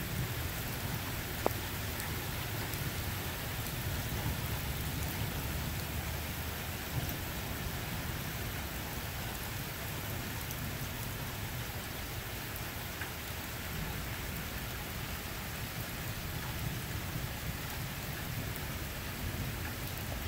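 Steady rain hissing, with a low rumble of thunder underneath that swells and eases; a single sharp tap about a second and a half in.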